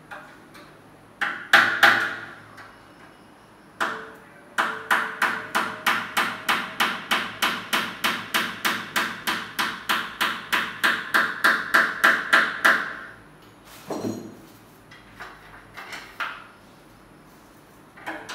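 Hammer blows: a few single strikes, then a steady run of about three strikes a second for some eight seconds, then a few lighter, scattered knocks.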